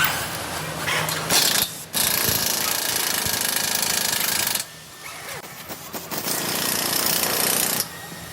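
Power tool working metal, run in three loud bursts of harsh noise, the longest about two and a half seconds, with quieter pauses between.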